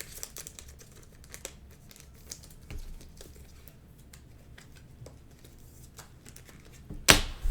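Trading cards being handled and flipped through, giving faint clicks and light crinkling, with a louder sharp noise near the end.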